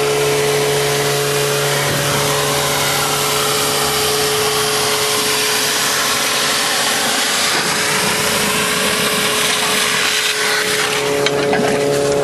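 25-horsepower electric DuroVac DVP vacuum system running, drawing air and water hard through a 3-inch hose nozzle plunged beneath the water surface to pick up golf balls. A loud, steady rushing suction noise carries the machine's steady whine, which fades in the middle and returns near the end.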